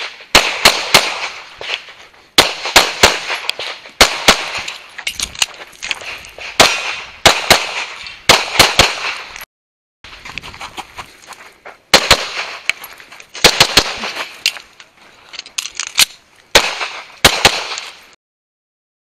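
Pistol fired rapidly at close targets, shots coming in quick pairs and short strings with brief pauses between them, each shot followed by a short echo. The shooting stops a second or so before the end.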